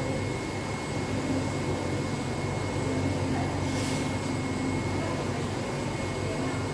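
Large-format UV-ink roll printer running, its print-head carriage travelling across the vinyl, with a steady motor and fan hum, a thin high whine, and a brief hiss about four seconds in.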